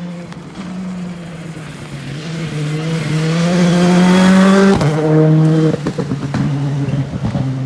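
Rally car engine at full throttle, rising in pitch and loudness as the car approaches, then a sharp drop in revs about two-thirds of the way through, after which the engine runs on choppily with a string of pops and crackles.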